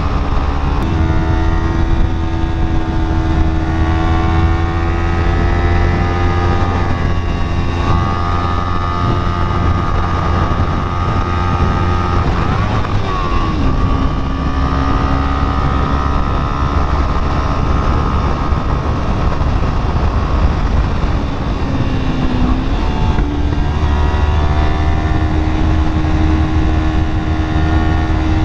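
A 300-class sport motorcycle's engine running at steady cruising revs while riding, with low wind rumble on the microphone. The revs drop about halfway through and dip briefly again near the end before climbing back.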